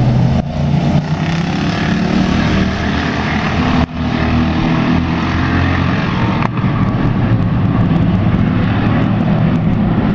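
Pack of dirt-track street stock race cars' engines running together, a loud steady drone with several engine pitches rising and falling.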